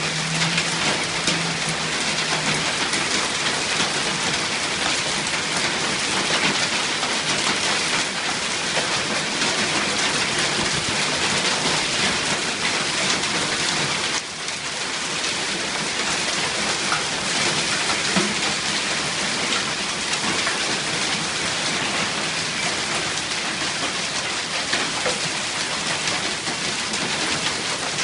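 Hailstorm with heavy rain: a dense, steady clatter and hiss of hailstones and rain hitting surfaces, easing for a moment about halfway through.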